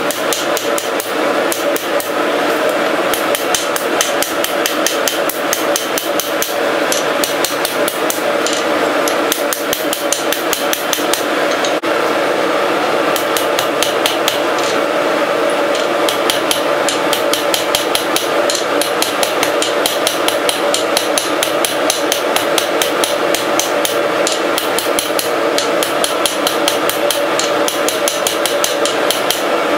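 Hand hammer striking red-hot steel bar stock on an anvil in a steady run of rapid blows, forging an S hook, with the anvil ringing on between strokes.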